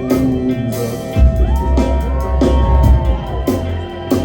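Live band music in an instrumental stretch with no singing: a deep sustained bass note comes in about a second in, under drum hits and several tones that bend up and down in pitch.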